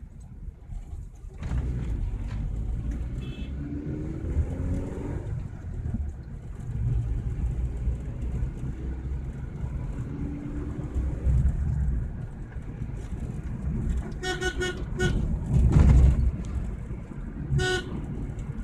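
Steady low engine and road rumble inside a moving car, with a vehicle horn giving a quick run of short toots about three quarters of the way through and one more toot near the end.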